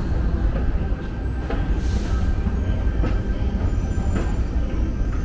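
Steady low rumble of an underground railway station, with a few faint clicks about a second apart.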